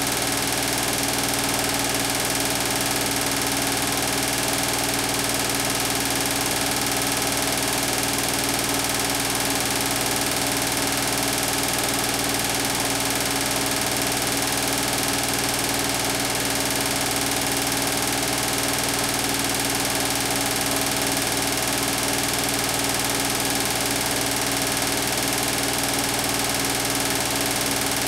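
Beko WTK104121W washing machine giving off a steady mechanical hum with a strong low tone, unchanging throughout, while its drum stands still with water in it rather than tumbling or spinning.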